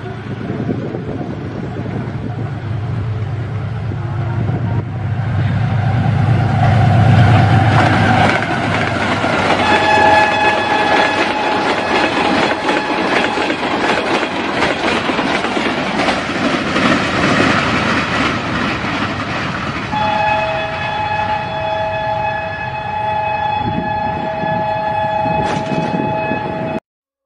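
Diesel-electric locomotive and passenger train passing, with a deep engine rumble over the first several seconds and the noise of wheels on the rails. The locomotive horn sounds twice: a short blast about ten seconds in and a long blast from about twenty seconds in. The sound cuts off abruptly near the end.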